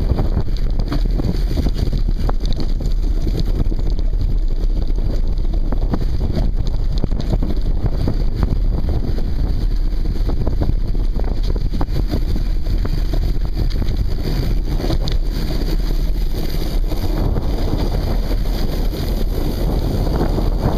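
Mountain bike riding over a rough dirt trail, heard from a handlebar-mounted camera: wind buffeting the microphone as a steady low rumble, with constant small rattles and knocks as the bike goes over bumps.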